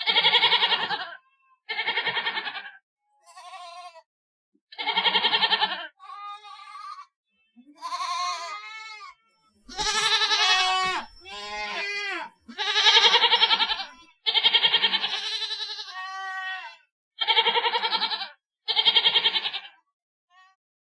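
Goats bleating: more than a dozen separate bleats, each about a second long with a quavering, pulsing tone. Some are loud and lower, others fainter and higher-pitched.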